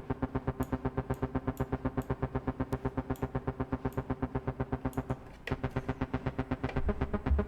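Software analog-style synthesizer bass arpeggiating in fast sixteenth notes, about nine short notes a second. The notes are short and plucky because the preset's sustain and release are turned off. The pattern stops briefly about five and a half seconds in, then starts again.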